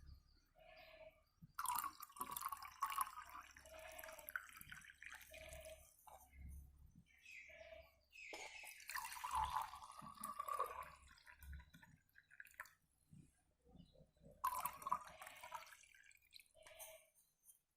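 Water in a vessel sloshing and dripping as lemon pieces are worked in it by hand to make lemon sharbat, coming in three bursts of a second or two.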